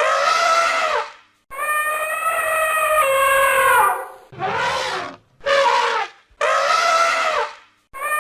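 Elephant trumpeting: a series of loud, pitched trumpet calls in quick succession, the longest about two and a half seconds, several dropping in pitch as they end.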